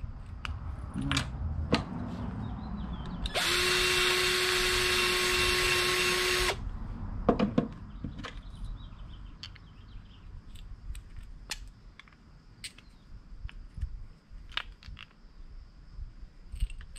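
Cordless drill running steadily for about three seconds, widening a hole in a plastic pipe cap. Its motor whine starts and stops sharply, with scattered handling clicks and knocks around it.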